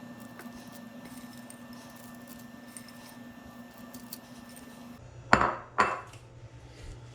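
Two sharp knocks of kitchenware about half a second apart, with a brief ring, after a few seconds of faint steady hum.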